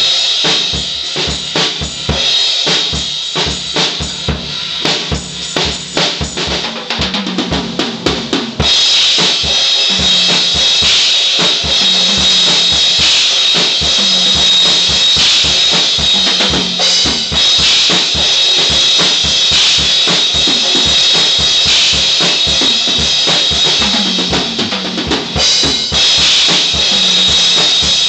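Tama drum kit played freely: a busy pattern of bass drum, snare and tom strokes, then from about eight seconds in it gets louder, with the cymbals ringing continuously over the drums.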